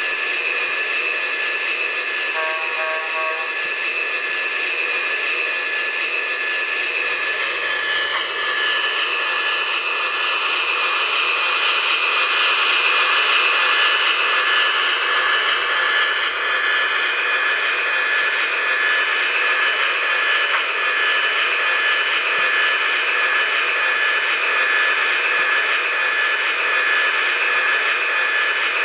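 Sound decoder of an MTH HO Union Pacific 'Veranda' gas-turbine locomotive model playing its turbine sound through the model's small speaker: a steady hissing whine with high steady tones on top, its pitch bending about eight seconds in. A brief pitched tone sounds about two and a half seconds in.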